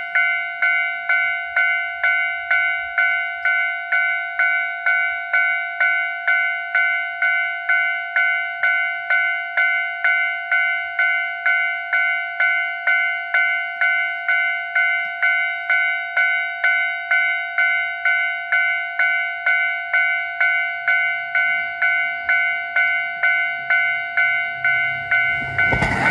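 Japanese railway level-crossing warning bell striking steadily, about two rings a second, each with a clear ringing tone. A low rumble builds underneath near the end.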